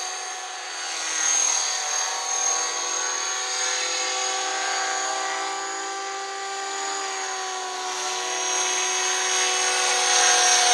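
Electric RC helicopter (a T-Rex 500 in a scale UH-1 Huey body) flying: a steady whine of motor and rotor blades with several held tones that shift slightly in pitch, growing louder near the end.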